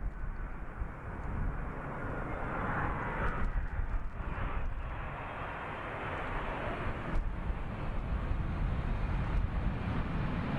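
A Boeing 777-200ER airliner's jet engines, twin GE90 turbofans, rumbling and hissing as it comes in to land on the runway, the noise growing louder toward the end as it rolls closer.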